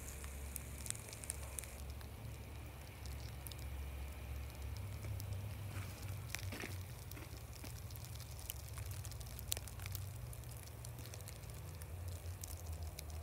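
Outdoor ambience during a light snowfall: a low steady rumble with scattered faint ticks and crackles.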